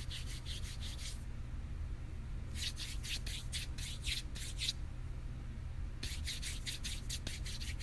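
Dry skin rubbed briskly back and forth, about four to five scratchy strokes a second, in three runs: one ending about a second in, one from about two and a half to five seconds in, and one starting about six seconds in.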